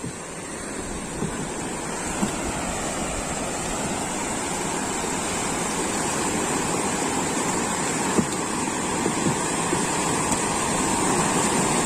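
Sea waves washing on the shore with wind on the microphone, a steady rushing noise that grows gradually louder.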